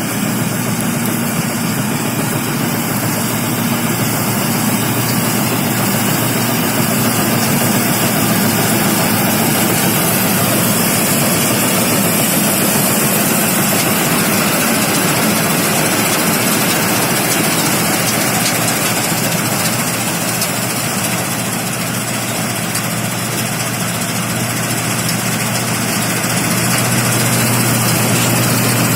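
Combine harvester's diesel engine running steadily, a loud even mechanical noise over a low hum; it eases slightly about two-thirds through and picks up again near the end.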